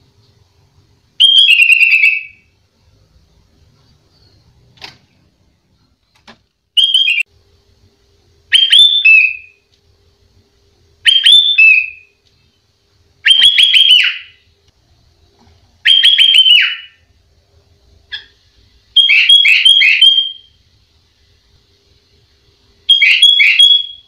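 Sooty-headed bulbul (kutilang) singing: eight short, loud whistled phrases of about a second each, every two to three seconds, one of the later phrases a longer run of quickly repeated notes.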